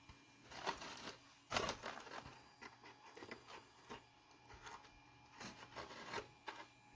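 Faint rustling and scraping of small objects being handled, in a series of short scuffs with the loudest about one and a half seconds in.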